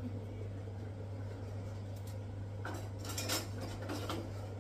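Metal kitchen utensils clinking and clattering as a utensil drawer is rummaged through, a few clinks about three seconds in and again near the end, over a steady low hum.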